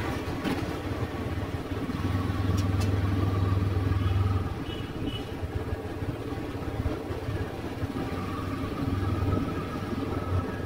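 Motorbike engine hum and road noise heard while riding through city street traffic. The low engine hum is louder for about two seconds, then eases.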